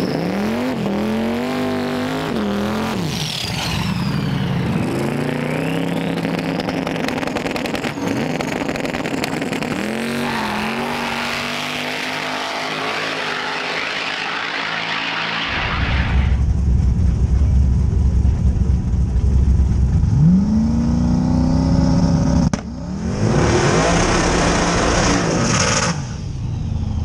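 Drag car making a pass: the engine's revs climb and drop several times as it shifts through the gears. Then a closer car's engine runs with a deep, loud rumble, revs up once, and a loud rushing noise lasts about three seconds near the end.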